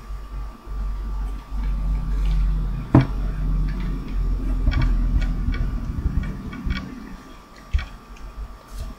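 Hands squeezing a stiff bottle of tacky glue and handling paper on a table: a low rubbing rumble with scattered clicks, one sharper click about three seconds in.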